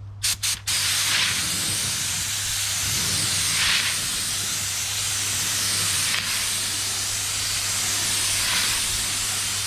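Paint spray gun hissing as it is triggered in a continuous spray, after two short puffs right at the start; the hiss swells every couple of seconds with each pass. A low steady hum runs underneath.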